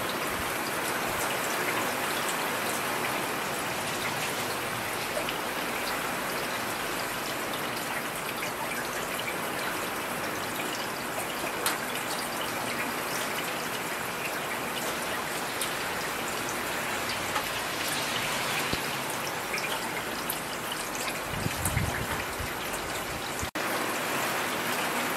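Heavy rain falling steadily: a dense, even hiss with scattered close drop ticks, and a brief low rumble near the end.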